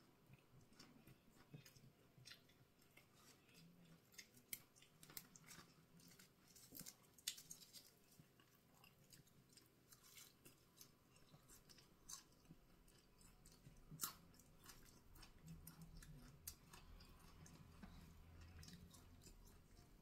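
Faint close-up chewing of a mouthful of food eaten by hand, with many small wet mouth clicks and occasional crunches.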